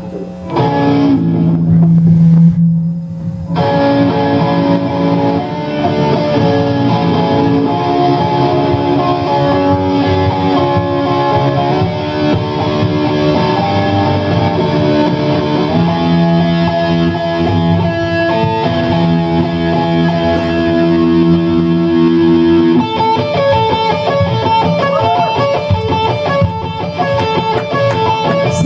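Live amateur rock band playing a ballad intro: electric guitar lead over bass guitar, drums and keyboard. About 23 seconds in the sound changes and a woman's singing comes in.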